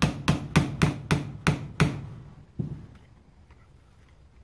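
Small hammer tapping the trigger pin of a Tec-9's fire control group home: about eight quick, sharp taps at about four a second, then one lighter tap and quiet.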